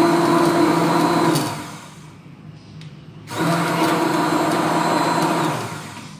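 Electric hand blender running in a jug, blending watermelon, with a steady motor whine. It shuts off about a second and a half in, starts again after a pause of about two seconds, then winds down near the end.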